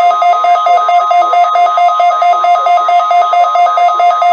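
A weather radio receiver's alarm beeping, two pitches pulsing about four times a second, over the steady single-pitch NOAA Weather Radio warning alarm tone sent for the required weekly test.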